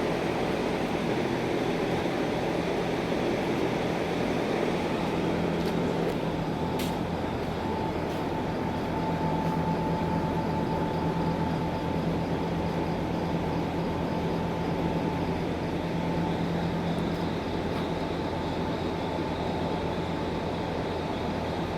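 A steady mechanical drone with a constant low hum and a faint high tone, unchanging throughout.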